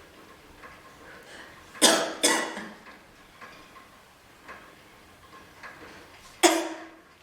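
A woman coughing on vape vapour: two coughs close together about two seconds in, and one more near the end.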